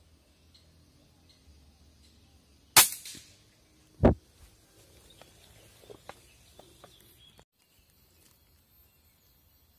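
A single sharp rifle shot about three seconds in, followed a little over a second later by a loud, duller thump, then a few faint clicks.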